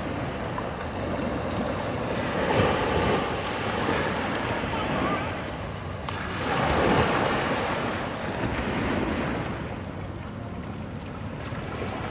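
Waves breaking and washing up on a beach, swelling louder twice, with wind buffeting the microphone.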